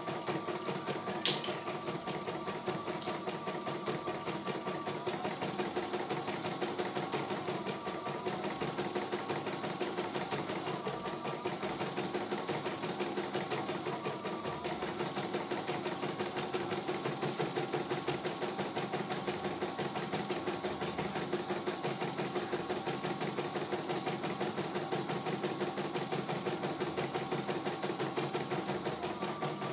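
CNY E900 computerized embroidery machine stitching a design, its needle running in a fast, steady rhythm. A single sharp click sounds about a second in.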